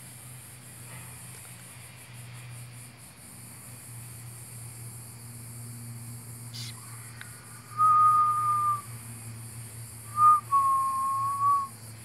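Someone whistling two held, level notes: one about a second long, then after a short pause a brief note followed by a longer one lasting over a second.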